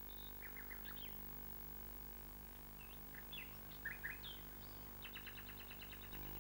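Faint birdsong: short scattered chirps and sliding calls, then a fast run of clicking notes about five seconds in, over a steady low electrical hum.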